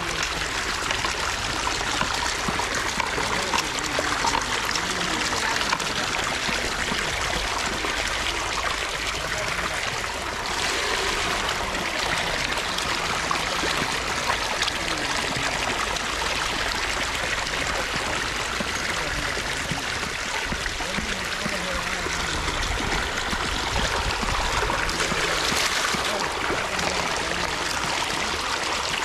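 Water gushing out of a hose pipe into a stone channel: a steady rush and splash of flowing water.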